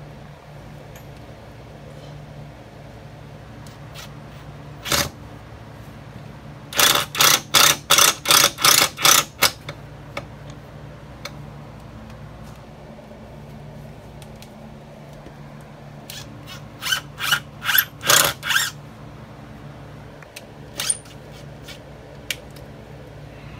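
Cordless impact driver driving screws into wood in short trigger bursts: a quick run of about nine bursts several seconds in, about seven more later on, and single bursts between them.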